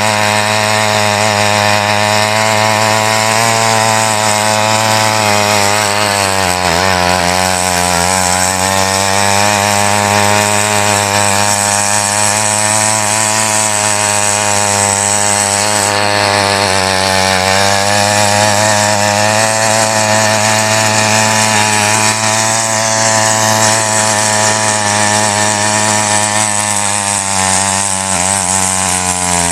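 Small petrol mini weeder (mini tiller) engine running at high revs while its rotating tines churn loose soil. The engine note sags briefly a few times as the tines take load, then picks back up.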